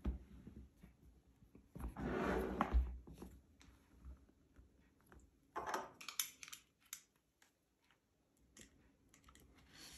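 Quiet handling of drone packaging as the box is opened: a short rustle about two seconds in, another near six seconds, and scattered light clicks and taps.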